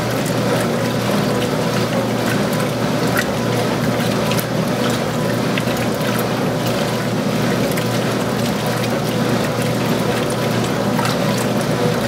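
Early-1980s Montgomery Ward top-load washer agitating a wash load: water and clothes sloshing and churning around the agitator over the steady hum of the motor and transmission.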